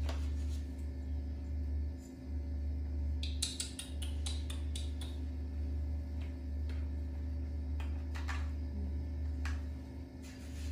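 Scattered light clicks and taps of a small knife peeling and slicing a mango and setting the slices on plastic trays, over a steady low hum. A quick run of taps comes about three to four seconds in.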